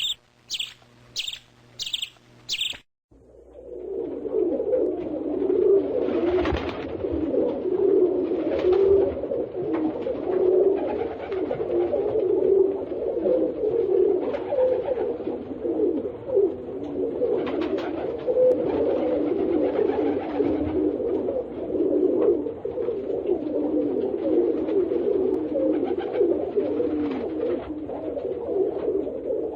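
Five short, high chirps in quick succession, then a flock of pigeons cooing continuously, many overlapping low calls.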